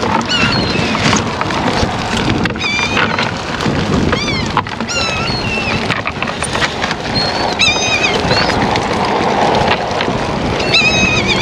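A bird calling over and over in short, high, bending cries, over a constant rough patter of small slaps and splashes, as from baitfish flopping in a freshly hauled cast net.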